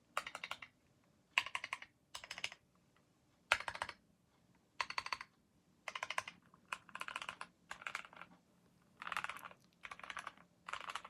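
Typing on a Keychron Q10 mechanical keyboard with stock, factory-lubed Keychron K Pro Brown tactile switches, in bursts of rapid keystrokes broken by short pauses.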